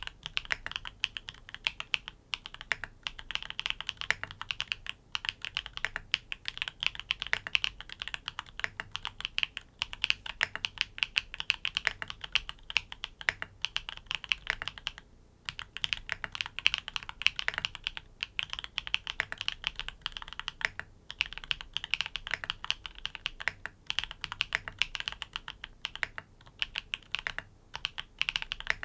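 Typing on a NEO80 custom mechanical keyboard with tactile switches, in its O-ring mount. Quick runs of keystrokes go on throughout, broken by a few short pauses.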